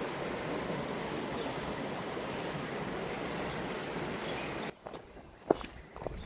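A rainforest stream running with a steady rush of water, which cuts off abruptly near the end. A few short footsteps or taps on the trail follow.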